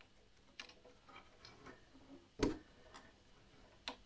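Small clicks and taps of a threaded outdoor-light fitting being screwed up by hand against a wooden frame, with a sharper knock about two and a half seconds in and another near the end.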